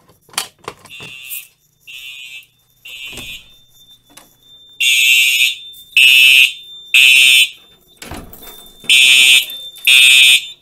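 Fire alarm horn on a Simplex 4010 system sounding in the three-pulse temporal code: groups of three harsh blasts about a second apart, then a pause, getting much louder about five seconds in. The system stays in alarm after the pull station has been reset, until it is silenced at the panel. A few key clicks sound near the start as the pull station's lock is turned.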